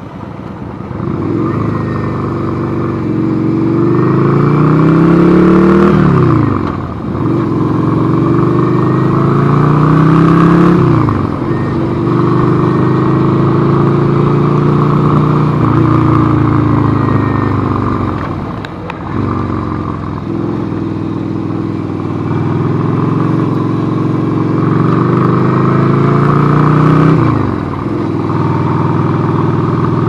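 Yamaha Virago's V-twin engine running on the road. The pitch climbs as it pulls, then drops back sharply, four times.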